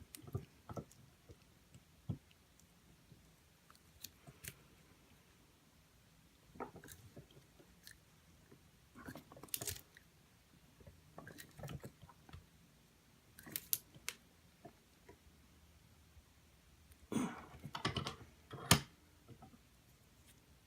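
Watch crystal press being set up and pressed down to seat a sapphire crystal in a watch case: scattered small clicks, scrapes and creaks of metal and plastic, with a busier cluster of clicks near the end.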